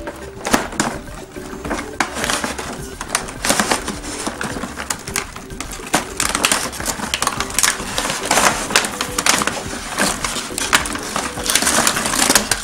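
Cardboard box and clear plastic packaging of a toy play set being handled and opened: dense, irregular crinkling and rustling of plastic and cardboard.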